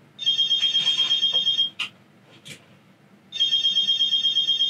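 Mobile phone ringtone for an incoming call: two rings, each a fast-pulsing high electronic trill about a second and a half long, the second starting about three seconds in.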